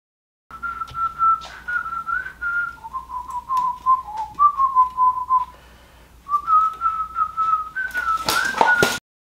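A person whistling a wavering tune, with a short break a little past halfway. Near the end comes a brief burst of rustling and knocking, the loudest part.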